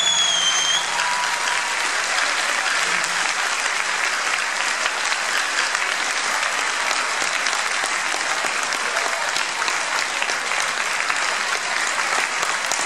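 Audience applauding steadily, with a brief high whistle at the very start.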